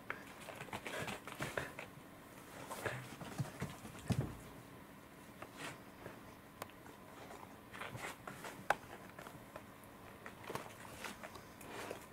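A cat chewing saury off a plate: small, irregular clicks and smacks, with a louder dull thump about four seconds in.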